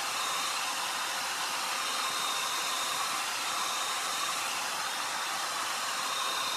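Handheld hair dryer running steadily with a faint high whine, blowing close over a sheet of glass to dry wet enamel paint.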